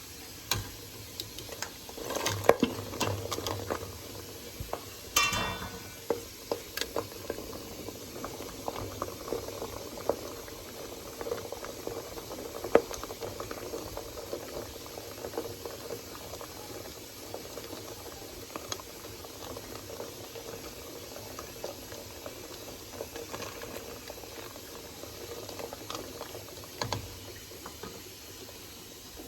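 Pot of water at a rolling boil with quail eggs cooking in it, bubbling steadily. Scattered clicks and knocks sound against the pot, the sharpest about two and a half and about thirteen seconds in, with a brief ringing tone about five seconds in.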